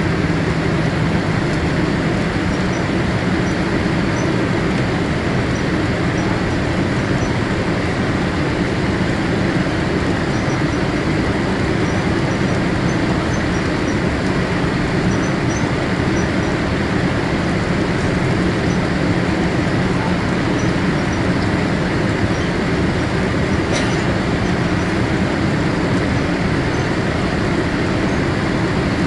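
Steady cabin noise of a Boeing 787-8 on approach, heard inside the cabin by the wing: a low jet-engine hum under a constant rush of air.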